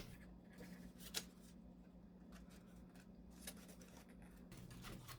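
Near silence: faint handling of cardstock as a paper piece is pressed into place, with a few soft clicks over a low steady hum that stops near the end.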